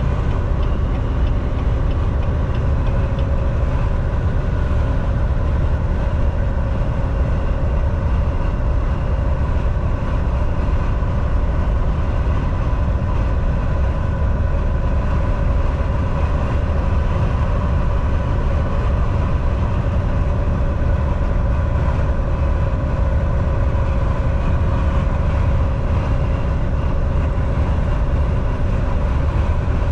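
Semi truck driving on the highway: a steady low engine and road rumble, with a constant whine-like tone riding on top and no change in speed or load.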